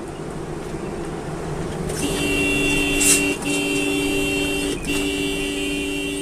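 Road noise from a moving vehicle, then about two seconds in a two-tone vehicle horn sounds in three long blasts with two brief breaks, the last still sounding at the end. A short burst of hiss comes about three seconds in.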